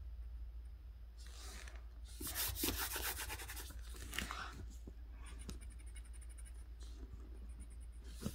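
A drawing tool scratching and rubbing across paper while colouring in, in several short bursts, the loudest about two to three seconds in.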